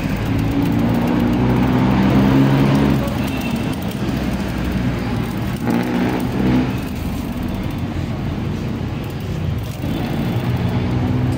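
Road traffic: motor vehicle engines running and passing by, loudest about two seconds in and again briefly around six seconds.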